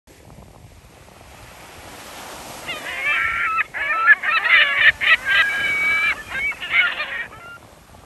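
Gulls calling: a run of loud, overlapping calls that starts about three seconds in and stops shortly before the end, over a steady hiss of surf and wind.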